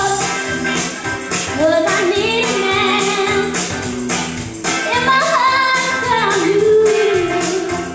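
A teenage girl singing live into a microphone over a recorded pop backing track with a steady beat.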